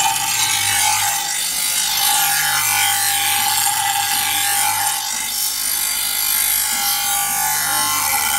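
Electric bench grinder's abrasive wheel grinding the rust off a steel boti, a curved Bengali cutting blade: a continuous loud hissing scrape over the motor's steady tone and low hum.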